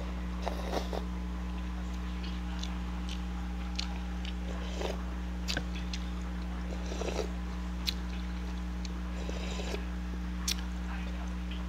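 A person eating spicy noodles close to the microphone: irregular chewing and slurping with a few sharp clicks, over a steady low hum.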